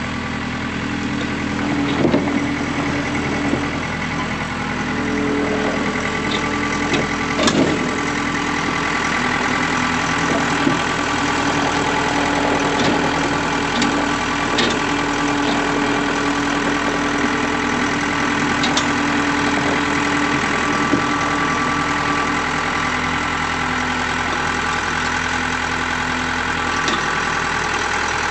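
A farm vehicle's engine running steadily, with a few short clunks and rattles over it, the loudest about two seconds in and again near eight seconds.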